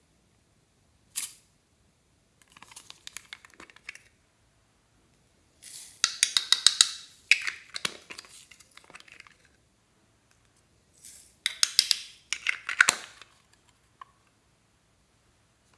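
Hard plastic slime containers being handled: a sharp click, then two bursts of dense, crackly plastic clicking and rattling.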